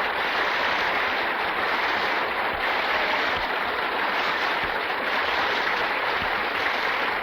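Studio audience applauding steadily at the end of the first act, as a dense, even clatter of many hands.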